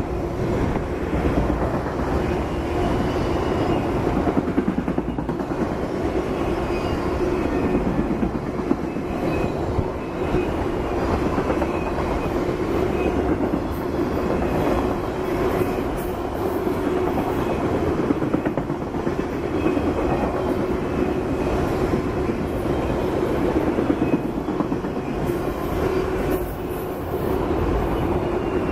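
Freight train of autorack cars rolling past close by: steady rolling noise of steel wheels on the rails, with some clickety-clack.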